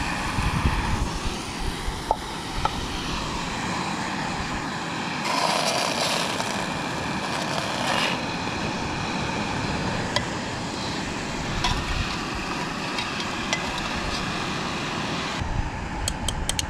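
Fish fillets frying in a pan over a portable gas burner, a steady sizzling rush, with wind buffeting the microphone underneath. There are scattered light ticks and a quick run of sharp taps near the end.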